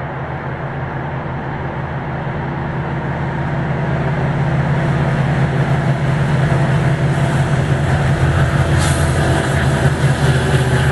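HO-scale model diesel locomotives running along the track, their motor hum and wheel noise growing louder as they approach. A brief sharp sound comes about nine seconds in.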